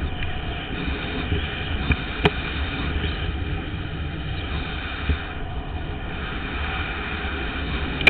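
Longboard wheels rolling fast over asphalt, a steady road roar with wind buffeting the microphone, and a couple of sharp knocks, about two and five seconds in.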